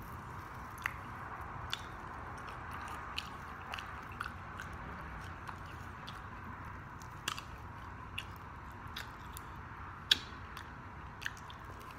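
Close-miked chewing of a mouthful of rice and red kidney beans, with scattered sharp wet mouth clicks and smacks; one click about ten seconds in is louder than the rest.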